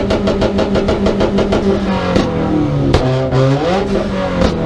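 Car engine with a loud aftermarket exhaust, revved hard and held at high revs with a fast stutter. About two seconds in the revs drop, then are blipped up again, with sharp exhaust pops in between.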